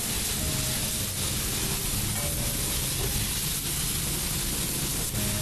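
Steady hiss of high-pressure water spraying from a self-serve car wash wand in the wash bay, with a hand brush scrubbing a car's wheel rim.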